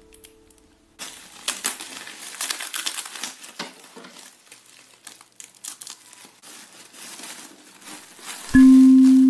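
Plastic bubble-wrap packaging crinkling and crackling as hands unwrap it, irregular with many sharp crackles. Near the end a single loud, clear chiming note sounds: the start of background music.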